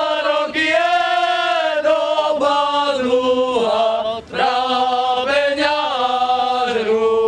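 Men singing a slow Moravian folk song together in long, drawn-out phrases, the melody stepping down from note to note, with a short breath about four seconds in.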